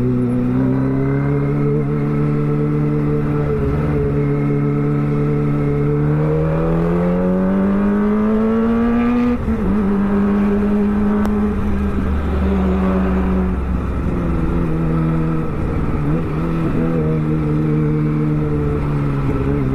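Kawasaki Ninja ZX-25R's 249 cc inline-four engine running under way. The engine note holds steady, then climbs in pitch for about three seconds from around six seconds in. About nine seconds in it drops at once, as on an upshift, and then holds steady again.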